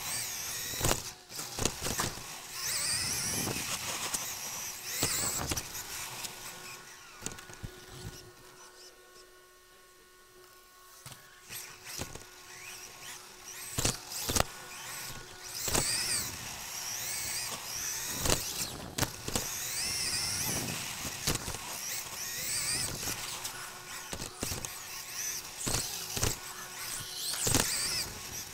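Onboard sound of an Xray XB2 1:10 2WD electric buggy with a stock 13.5-turn brushless motor lapping a carpet track: the motor whines, rising and falling with the throttle, over tyre and drivetrain noise, with frequent sharp knocks. It goes quieter for a few seconds about eight seconds in, then picks up again.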